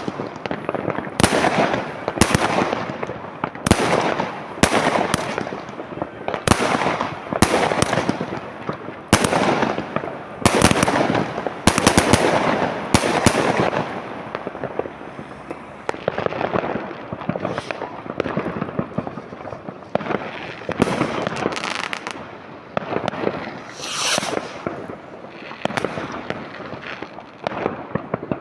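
New Year's Eve fireworks and firecrackers going off: a rapid run of sharp bangs with crackling in between. The bangs come thick and loud for the first half, then thin out and grow quieter.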